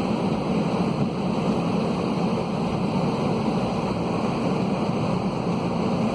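Airbus A320 cabin noise heard from a passenger seat: a steady low rumble of the engines and rushing air, with no change in pitch or level.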